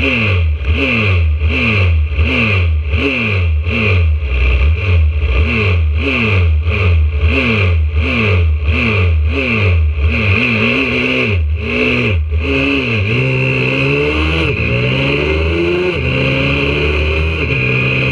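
YCF 125cc four-stroke pit bike engine revved in quick throttle blips, about one and a half a second. About twelve seconds in it pulls away, the pitch climbing and dropping back at each gear change.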